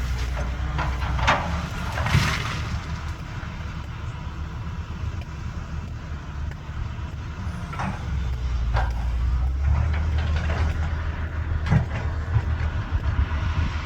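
Caterpillar 320BL excavator's diesel engine running under load, easing off and then building up again about halfway through, with several sharp clanks and knocks from the working machine.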